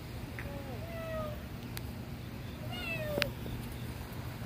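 A cat meowing twice: a drawn-out meow about half a second in and a shorter falling one about three seconds in, with a couple of sharp clicks between them.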